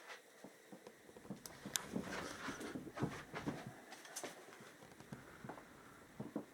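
Light handling noise: scattered small clicks, taps and rustling, busiest from about one and a half to four and a half seconds in, with a few sharper ticks.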